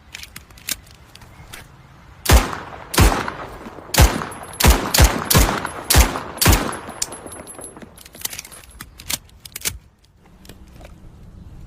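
Colt M1911 .45 pistol firing eight shots at an uneven pace over about four seconds, with lighter metallic clicks before and after the shots.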